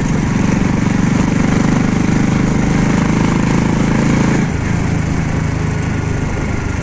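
Small motorcycle engine running steadily on the move, its rapid firing pulse strong for about four and a half seconds before the engine eases off.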